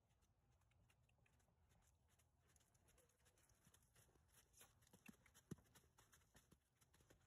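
Near silence, with a few faint ticks about five seconds in.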